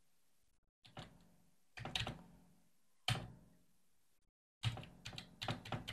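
Computer keyboard being typed, quiet keystrokes in short irregular clusters with pauses between them, the last cluster denser.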